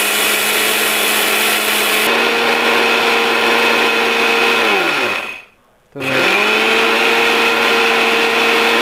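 Bajaj GX 3701 750-watt mixer grinder running, grinding dry rice into powder in its small steel jar, with a loud steady motor whine. About five seconds in it is switched off and winds down, falling in pitch. About a second later it is switched back on.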